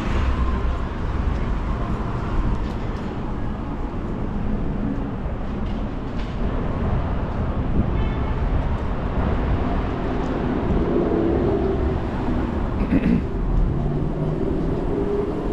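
Busy downtown street and market ambience: a steady low rumble with scattered distant voices.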